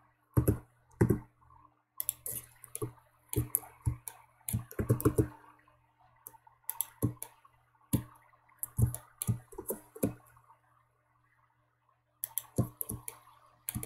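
Irregular clicks of a computer mouse and keyboard, coming in clusters with short pauses, over a faint steady low hum.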